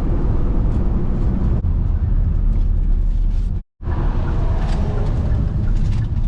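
Steady low road and engine rumble inside a moving car, with a brief dropout about four seconds in.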